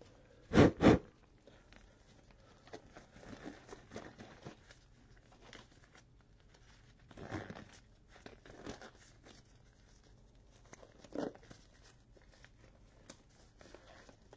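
Two sharp knocks a fraction of a second apart about half a second in, then faint, scattered rustling and handling noises in a small room.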